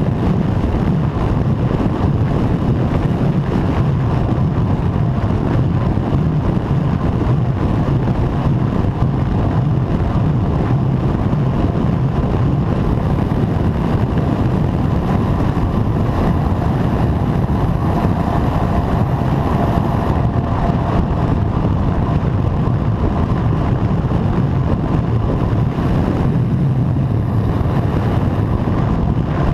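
Steady wind rumble on a seatpost-mounted action camera's microphone as a road bike descends at about 50 km/h, mixed with road noise.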